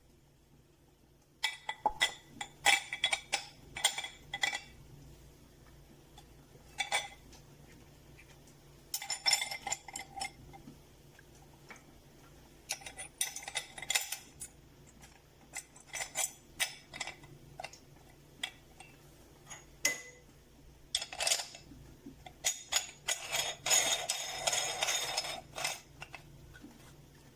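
Intermittent clinking and clattering of metal kitchenware being handled, in short clusters with gaps between and a longer rattle near the end.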